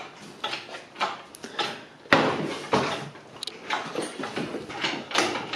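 A run of knocks and clunks, one sharp knock about two seconds in the loudest, as an SR20DET engine hanging from an engine crane is worked up and out of the engine bay.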